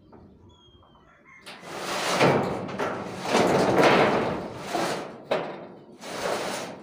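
Corrugated galvanized steel roofing sheet scraping as it is slid across steel purlins, in a series of long noisy drags with a short knock partway through.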